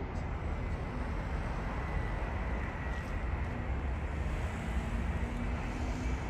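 Twin-engine jet airliner on short final, its engines a steady low rumble at approach power; a faint low hum joins about midway as it nears touchdown.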